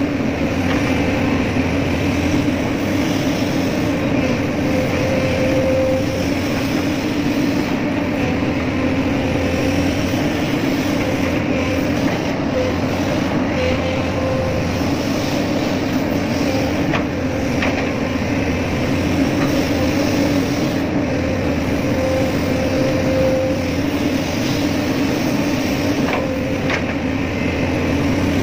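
Excavator's diesel engine running steadily under work, with a higher tone that comes and goes and a few faint clanks.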